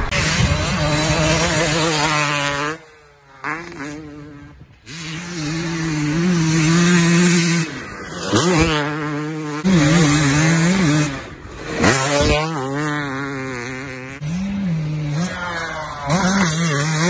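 Dirt bike engine revving hard and shifting through the gears, with the throttle shut off a few times so the sound drops away briefly.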